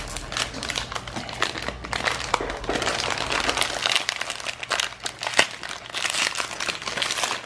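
Foil blind-bag packet crinkling and crackling as hands handle it and work at opening it, with a single sharp click about five seconds in.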